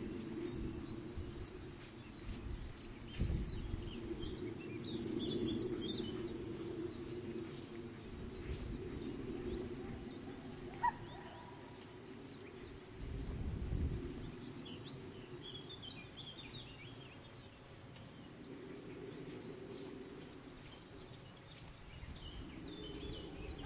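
Open-air ambience: small birds chirping in short clusters now and then, over a steady low hum and a few brief low rumbles.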